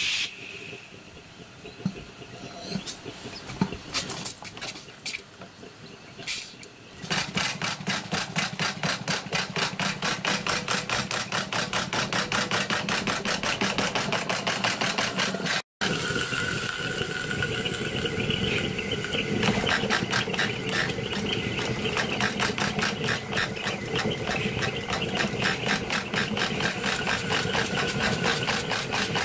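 Miniature live-steam locomotive running light on blocks with its wheels off the rails: after a few soft clicks and a faint hiss, about seven seconds in the throttle-opened cylinders pick up into a rapid, even beat of exhaust chuffs that keeps going.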